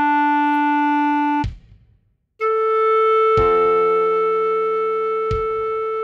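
Clarinet melody played slowly at half speed: a held note that breaks off about a second and a half in, a short rest, then a higher note held to the end. Under the higher note a piano chord is struck twice, about two seconds apart.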